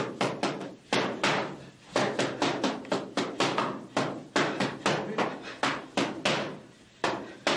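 Boxing gloves striking focus mitts in fast combinations: a quick run of sharp slaps, several a second, with a short pause near the end before the punches resume.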